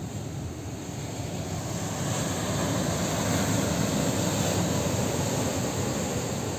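Rough sea surf breaking and washing against the rocks below, with wind rumbling on the microphone; the surge swells louder about two seconds in.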